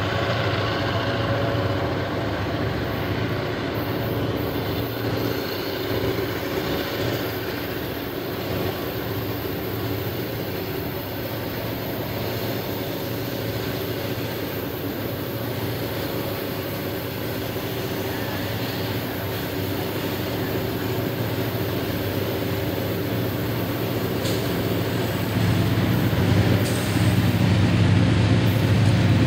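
CN diesel freight locomotives running, a steady low engine drone with rolling train noise, growing louder in the last few seconds as a locomotive draws nearer.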